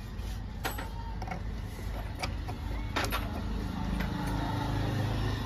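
A few sharp metal clicks, about a second in and again about three seconds in, as a motorcycle cylinder block is worked down over its piston and rings onto the crankcase. A steady low engine rumble runs underneath.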